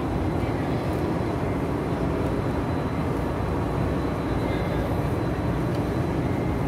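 Steady low rumble of background noise in a large hall, even throughout with no distinct events.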